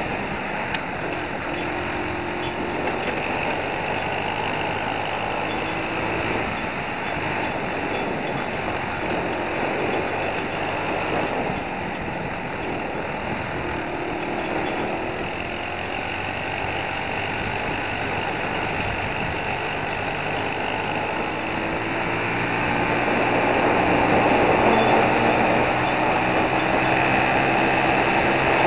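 Racing kart's Briggs & Stratton World Formula four-stroke single-cylinder engine running at racing speed, its pitch rising and falling as the kart brakes and accelerates through the corners, over a steady rush of wind and tyre noise. A brief click comes about a second in, and the engine grows louder about three-quarters of the way through as the kart accelerates onto the straight.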